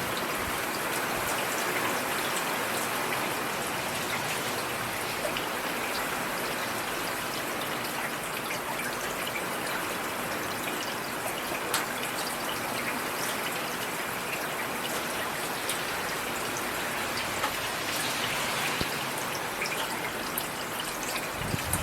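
Steady rain falling, an even hiss with scattered individual drops ticking on a surface. A brief low thump comes right at the end.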